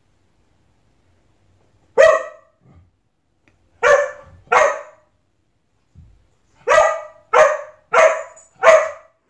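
A large black-and-tan dog barking at its own reflection in a mirror: one bark about two seconds in, a pair a little later, then four in quick succession near the end.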